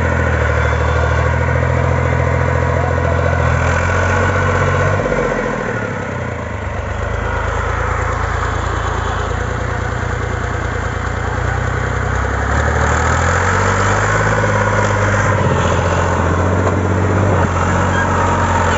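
Al-Ghazi farm tractor's diesel engine running hard while the tractor is stuck in deep mud and trying to drive out. The engine note drops about five seconds in, then rises and holds again from about twelve seconds in.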